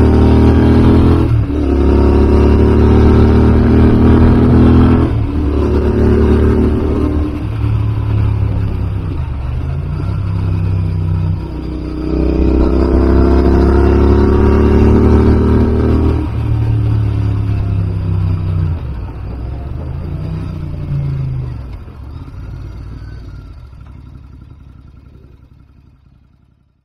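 Royal Enfield Interceptor 650's 648 cc parallel-twin engine through Enfield Precision silencers with the baffles out, heard from the rider's seat: snappy and snarly, it accelerates through the gears, rising in pitch with a brief dip at each upshift, then eases off as the throttle closes and fades out near the end.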